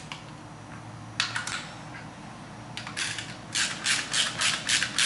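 Socket wrench ratchet being worked on a small bolt: a couple of short clicking strokes about a second in, then a quick run of strokes, about three a second, in the second half.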